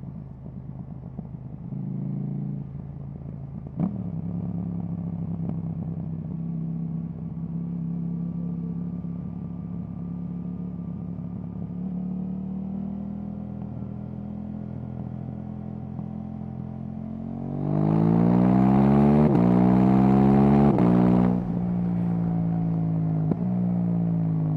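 KTM 790 Duke's parallel-twin engine through an Akrapovic exhaust, running at steady part throttle for most of the time. About two-thirds through it is opened up hard, revs rising loudly through two quick upshifts, then the throttle closes and the revs fall away.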